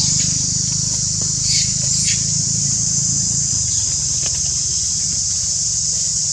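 Insects, most likely cicadas, droning steadily and high-pitched over a low steady hum, with a couple of faint short chirps about one and a half and two seconds in.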